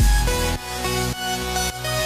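Electronic dance music with synth notes over a heavy bass line; the bass drops out about half a second in and the track thins before the full beat returns just after.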